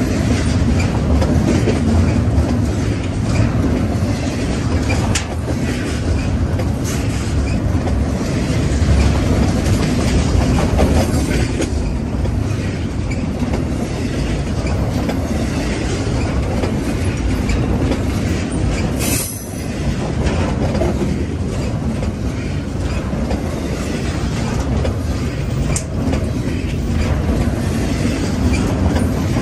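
Double-stack intermodal freight cars rolling past close by: a steady rumble of steel wheels on rail with occasional clicks, and a brief high wheel squeal about two-thirds of the way through.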